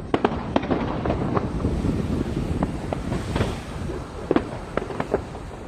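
Fireworks bursting in an irregular series of sharp bangs over a continuous low rumble, with a brief crackling hiss about halfway through.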